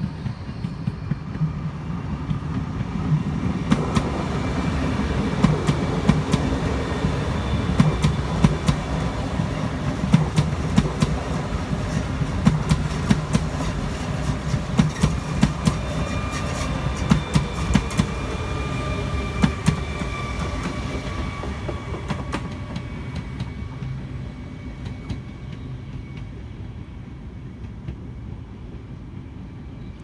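PKP Intercity ED250 Pendolino electric train passing close by: a low rumble with rapid wheel clicks over the rail joints grows to a peak about midway through. Whining tones fall in pitch as it goes past, and the sound fades as the train runs off.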